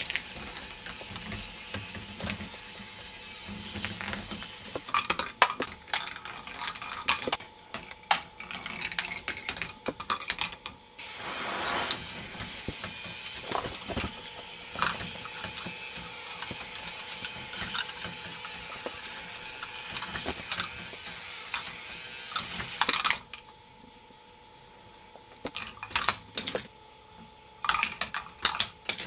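K'nex ball machine running: plastic balls clicking and rattling along the plastic tracks and motor-driven lifts in irregular bursts, over a faint steady hum. The clatter drops away for about two seconds near the end, then resumes.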